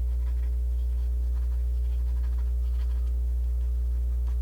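Fingers lightly scratching a paper page of a picture book: faint, scattered scratchy rustles. A steady low electrical hum runs louder underneath.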